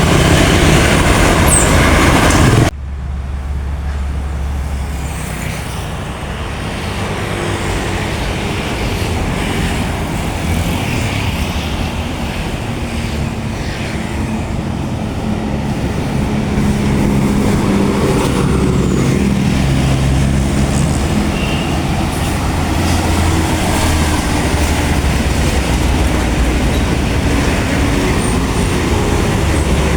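Large diesel buses and road traffic running past. About three seconds in the sound cuts abruptly to a quieter low engine drone, which slowly grows louder.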